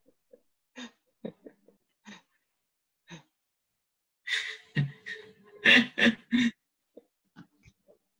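A man's breathy laughter: a few soft huffs, then a louder run of three or four short laughs about five to six seconds in.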